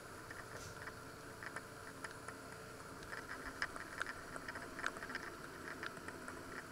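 Faint, irregular crackling and ticking over a steady low hiss, from a lidded enamelled cast-iron casserole cooking on the hob.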